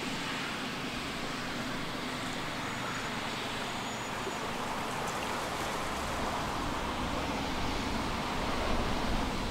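Steady outdoor background noise, with a low rumble that swells up over the last few seconds.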